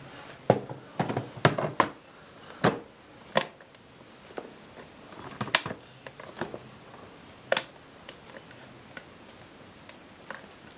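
Irregular sharp knocks and clicks, a cluster of them in the first few seconds, then a few more spaced out, with no vacuum motor running.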